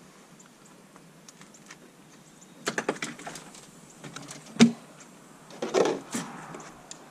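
Plastic pet carrier with a wire door being picked up and handled: clusters of clicks and rattles, with one sharper knock about halfway through.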